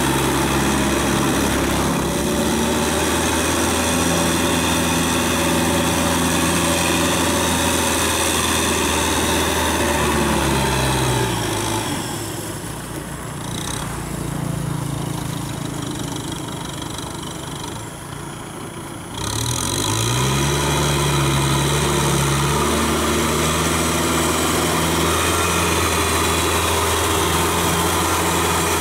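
Kubota M6040 tractor's diesel engine running steadily as it drives a Maschio rotary tiller through a flooded paddy. The engine note falls away and gets quieter a little before halfway, stays low for about seven seconds, then climbs back up and runs steady again.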